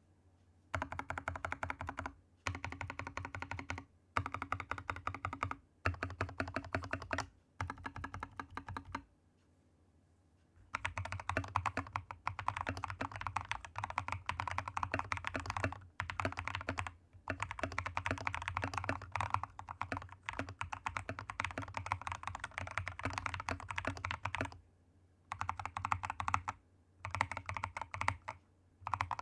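Typing on a Royal Kludge RK61 mechanical keyboard modded with hand-lubed Akko V3 Cream Yellow and Ajazz Kiwi switches, lubed stabilisers, tape and PE foam mods and case foam. Rapid keystrokes come in bursts of a few seconds with short pauses between them.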